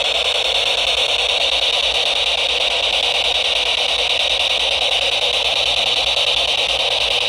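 SB-7 spirit box sweeping through radio stations: a loud, steady hiss of radio static with no voices coming through.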